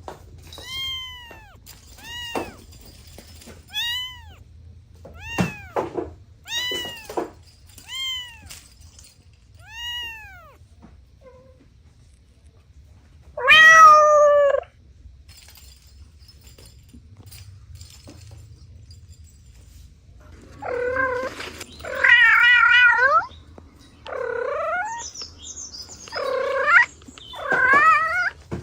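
Cats meowing: a run of short, high, arched mews repeated about every second and a half, then a single loud, lower meow around the middle. Near the end come several longer meows, one of them wavering.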